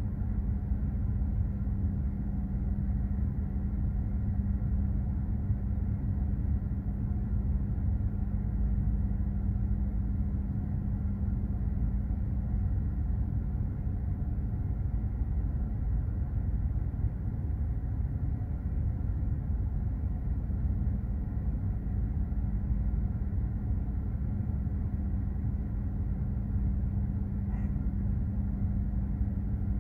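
Steady low rumble of a container ship under way, its engine and machinery droning with a constant hum.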